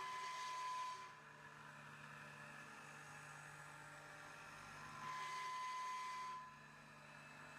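Mill spindle motor on a Huanyang VFD running with a steady hum. A higher whine with a hiss swells for about a second at the start and again for about a second and a half about five seconds in.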